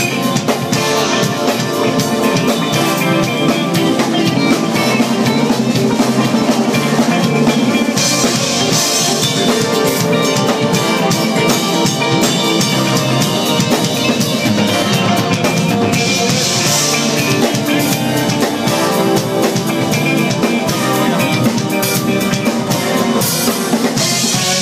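Smooth jazz band playing live, drum kit to the fore over a pitched melody and chords. A bright crash-cymbal wash marks the phrases about every eight seconds.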